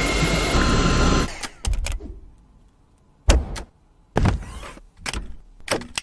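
Dyson V8 cordless vacuum's digital motor running with a high whine that steps down in pitch, then cutting off about a second in. Several sharp knocks follow at irregular intervals.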